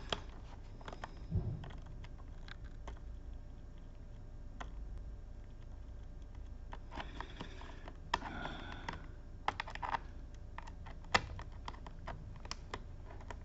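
Scattered light clicks and short scrapes of hand tools and fingers working on the plastic underside of an HP 14 laptop, where a rubber foot is being pried off to get at a hidden screw.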